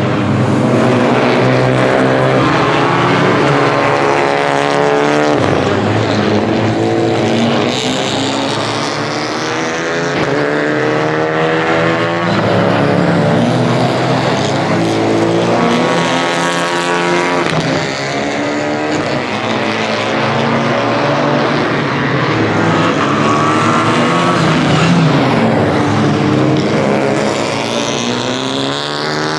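Rally cars at full throttle on a stage, engines revving up through the gears with a break at each shift, then lifting off and pulling away again, over and over.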